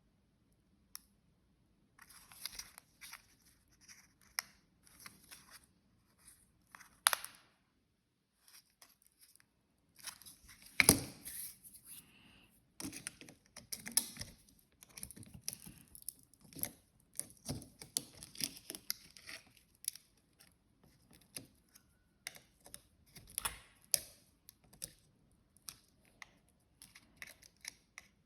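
Scissors snipping and material tearing in short, irregular bursts as something is being cut open, with a pause partway and one sharp loud snip or tear near the middle.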